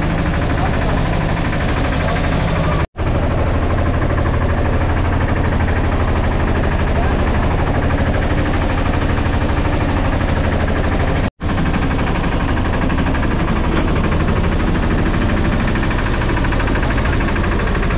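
Small tour boat's inboard engine running steadily underway, a fast low chugging, broken twice by a split-second gap.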